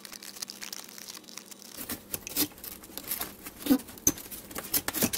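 Corrugated cardboard being cut by hand, a run of irregular crunching, tearing snips as a blade works around a circle in a box lid. They are faint at first and grow louder and closer together about two seconds in.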